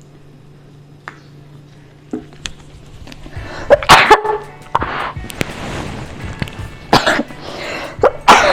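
A woman coughing in several harsh bursts, starting about three and a half seconds in, her throat irritated by the smoke of dry-roasted red chillies.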